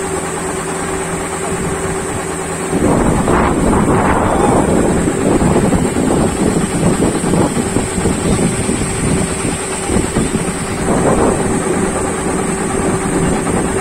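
A rice harvesting machine's engine running steadily with a constant hum. About three seconds in, a louder, rougher mechanical noise joins it and carries on, as the machine works under load.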